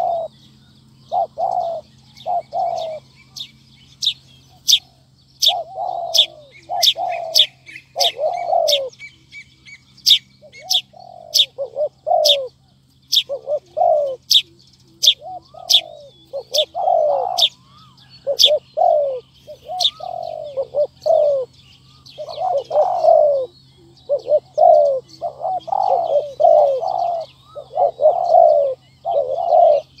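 Spotted doves cooing, one phrase after another, with short pauses. Through the middle there is a rapid run of sharp, very high chipping notes from another bird.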